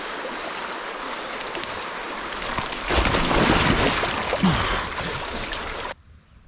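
Fast creek water rushing over rocks, a steady hiss that grows louder and rougher about halfway through, then cuts off abruptly near the end, leaving only a faint background.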